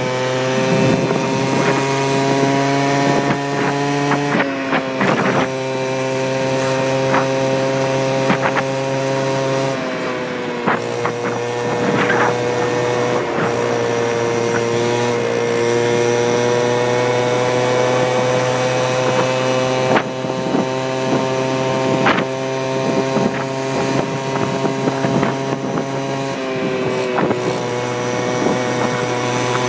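Go-Ped gas scooter's small two-stroke engine running at a steady speed under way, its pitch shifting slightly a few times, with scattered knocks and rattles.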